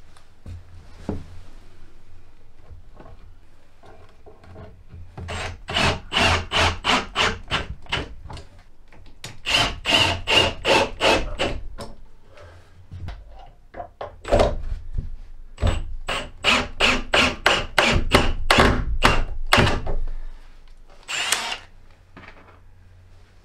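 Cordless drill driving screws into wooden studs, in four or five runs of a few seconds each with a rapid pulsing rattle.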